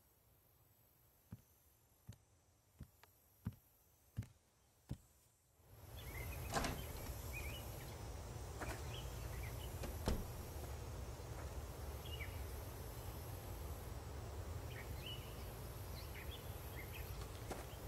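Six slow footsteps on a hard floor in a quiet room, about three every two seconds. About six seconds in, the sound changes to a steady outdoor background with short bird chirps and an occasional knock, the loudest about ten seconds in.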